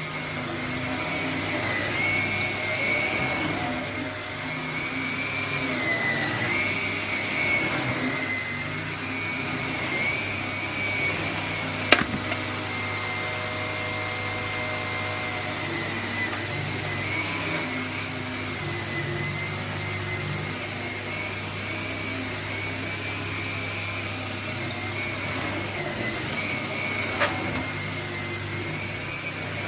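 Vax Floors and All upright vacuum cleaner running steadily as it is pushed over carpet picking up sawdust, its high motor whine wavering slightly. There is a sharp click about twelve seconds in and a smaller one near the end.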